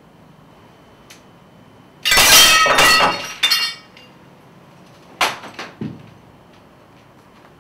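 A loud crash of glass and crockery with ringing clinks, about two seconds in and lasting over a second. A shorter second clatter follows about five seconds in.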